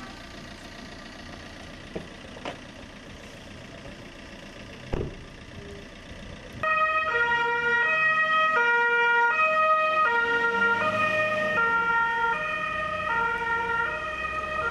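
Street noise with a few sharp knocks, then, about six and a half seconds in, a police car's two-tone siren starts up loudly. It switches steadily between a high and a low pitch about every two-thirds of a second.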